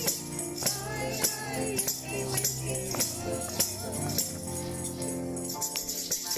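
Music with singing: a sung melody over steady low notes, with jingling hand percussion striking a steady beat a little under twice a second.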